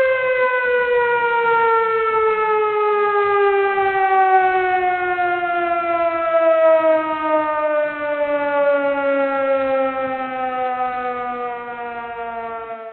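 Emergency warning siren sounding one long wail that glides slowly down in pitch and grows quieter, cutting off right at the end.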